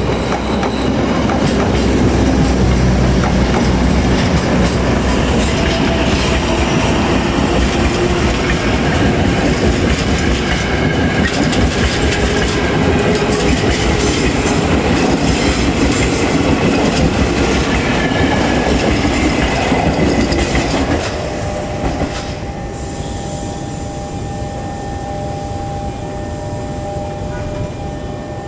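Passenger trains running past at close range on an electrified line: a loud, dense rumble of wheels with clattering over the rail joints. About twenty seconds in it drops noticeably, and a steady tone holds from then on.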